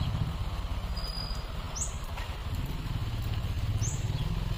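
Garden sprinkler jets on a PVC pipe line spraying water, a faint hiss under a low, steady rumble. A bird gives a short, high rising chirp twice.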